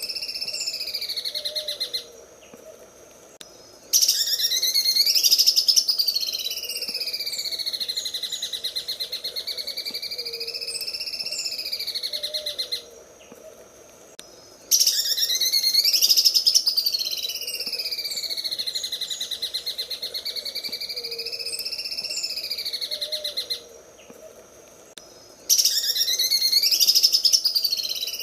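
Green leafbird (cucak ijo) singing its 'sewing machine' song: a fast, even, machine-like rattling trill whose pitch slowly rises and falls. Each phrase starts loudest and runs about nine seconds, and the same phrase repeats after short pauses about two, thirteen and twenty-four seconds in.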